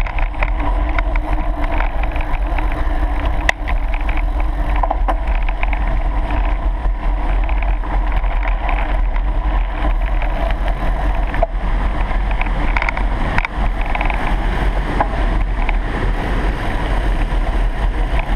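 Steady riding noise of a mountain bike on a grassy dirt track, with wind rumbling on the ride camera's microphone and the bike's tyres and frame rattling, and one sharp knock about three and a half seconds in.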